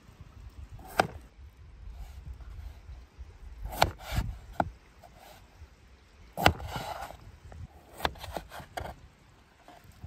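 A large kitchen knife cutting peeled raw potatoes into wedges on a wooden tray. Each cut ends in a sharp knock of the blade on the wood, about eight in all at uneven intervals, with soft scraping of the potatoes being handled in between.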